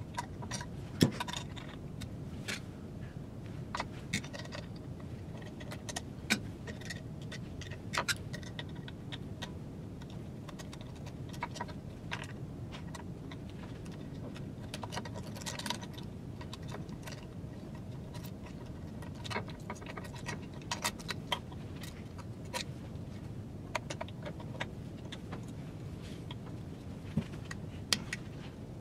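Scattered metallic clicks and clinks of screwdrivers and small metal parts as the old web guide actuator's drive mechanism is unscrewed and taken apart, over a steady low background hum. The sharpest clinks come about a second in and near the end.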